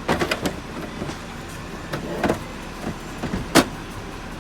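Plastic clicks and knocks from a Makita stackable tool case being handled as its lids and removable bins are opened and taken out: a quick cluster of clicks at the start, a few softer ones about two seconds in, and one sharp knock, the loudest, about three and a half seconds in.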